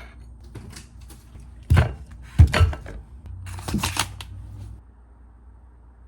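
Kitchen handling sounds: scattered knocks and clatter as things are moved about, with two sharp thuds about two seconds in and a short rattle a little later, then a quiet stretch.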